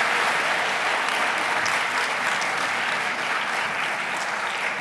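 Audience applauding steadily, slowly dying down.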